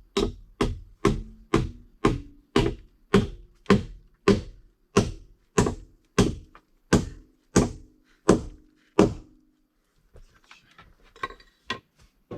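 A hammer striking repeatedly at a steady pace of roughly two blows a second, each blow leaving a short ringing tone, likely driving something home against resistance. The blows stop about nine seconds in, followed by light handling noises.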